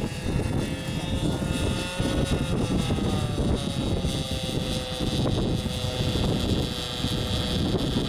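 Nitro-engined Vibe 50 RC helicopter running as it settles onto the ground, its engine and rotor whine dropping slightly in pitch a couple of seconds in and then holding steady while the rotors keep spinning. Heavy wind buffets the microphone.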